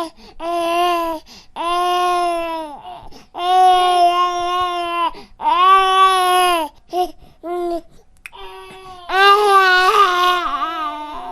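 Baby crying: a string of wails, each lasting about a second and broken by short catches of breath, with the loudest, most wavering wail near the end.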